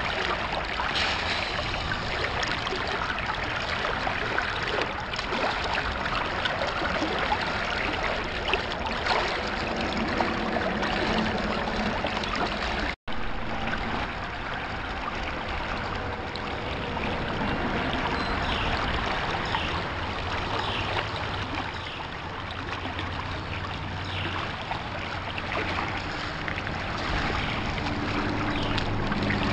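Shallow stream water running and splashing steadily around a small sluice box set in the current. The sound drops out for an instant about 13 seconds in.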